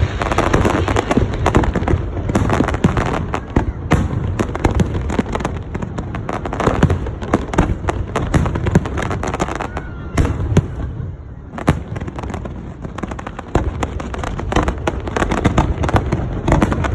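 Fireworks display: a dense, continuous run of bangs and crackles, thinning out briefly about eleven seconds in before building up again.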